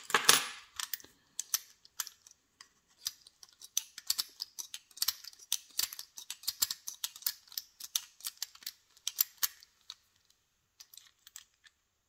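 Rapid small metallic clicks and rattles from an open American Lock 1100 padlock being handled, its brass body and steel shackle knocking as it is turned over. A louder cluster comes right at the start; the clicking thins to a few scattered ticks for the last couple of seconds.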